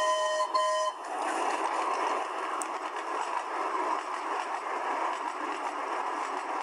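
Steam locomotive whistle blowing twice in quick succession, followed by a steady rushing hiss of the running locomotive.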